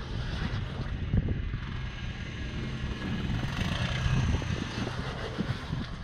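Jeep Wrangler engine running at low revs as the four-wheel-drive crawls over bedrock, with a few short knocks.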